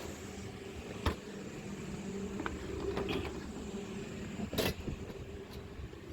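Hand tools clicking and knocking against metal while AC compressor fittings are unbolted in a car's engine bay, over a steady low hum. Two sharper knocks stand out, about a second in and about four and a half seconds in.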